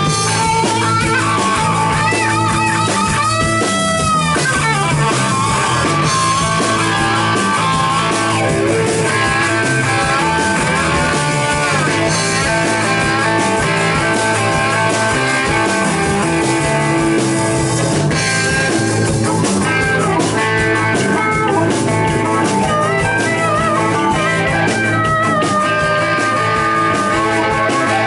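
Blues rock band playing live: electric guitar, bass guitar and drum kit, with a harmonica. Some long notes are bent in pitch about three to four seconds in.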